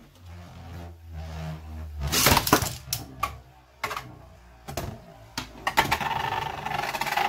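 Beyblade Burst spinning tops clashing in a plastic stadium: a run of sharp clacks and knocks. About six seconds in this turns into a steady whirring rattle as a top spins against the stadium's edge.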